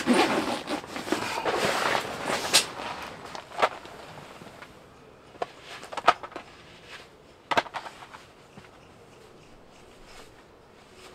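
Rustling and clattering of things being handled, then a few separate sharp knocks that grow fainter.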